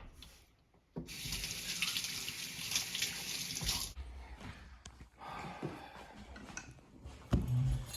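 Kitchen tap running water into a sink for about three seconds, then turned off abruptly, followed by a few light knocks.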